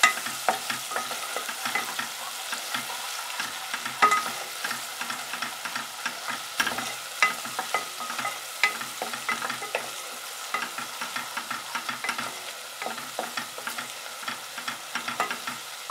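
Diced red onion sizzling in melted butter in an aluminium pot, stirred with a slotted wooden spoon that scrapes and taps against the pot over and over in irregular clicks.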